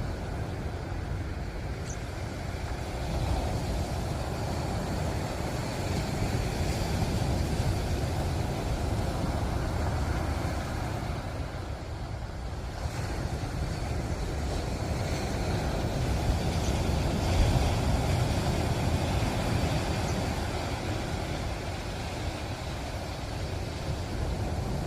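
Ocean surf washing ashore: a continuous low rushing that swells and eases every several seconds as waves break.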